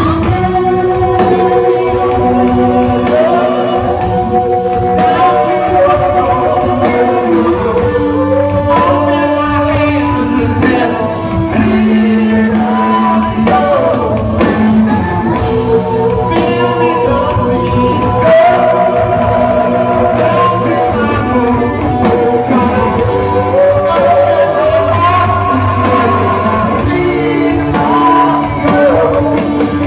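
Live rock band playing a loud, driving song: a lead voice sings over a full band with a steady drum beat. It is heard from the audience in a large hall.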